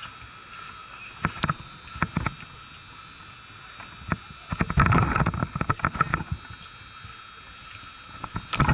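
Rustling, clicks and knocks of the catcher's gear and mitt moving against the catcher-worn camera, loudest in a run from about four and a half to six and a half seconds in, over a steady background hiss.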